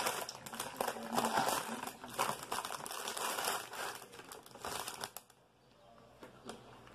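Plastic wrapper of a Keebler Fudge Stripes cookie package crinkling and crackling as it is torn open and handled, stopping about five seconds in.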